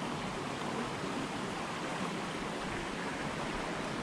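Jungle stream water rushing steadily over rocks.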